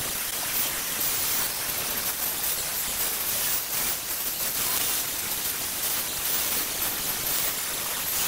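Handheld angle grinder grinding down the welds on steel motorcycle exhaust pipes: a steady hiss of abrasive on metal with a thin high whine that wavers now and then.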